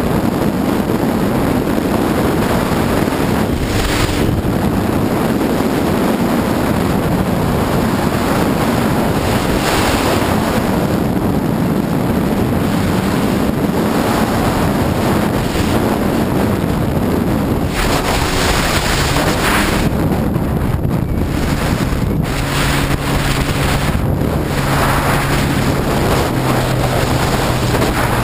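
Sea-Doo personal watercraft under way: a steady rush of wind buffeting the microphone and water sweeping past the hull, with a steady engine hum coming through more clearly near the end.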